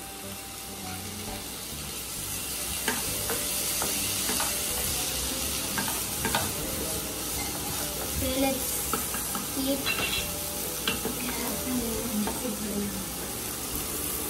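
Chopped tomatoes and vegetables sizzling in a frying pan, the sizzle building over the first couple of seconds after they go in. A wooden spatula stirs them, with scattered scrapes and knocks against the pan.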